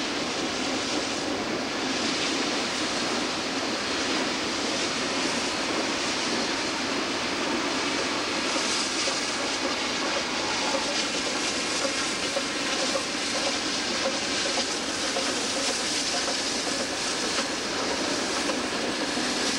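Clinchfield 676 steam locomotive working a train across a bridge: a steady, even rush of exhaust and running-gear noise with no distinct exhaust beats.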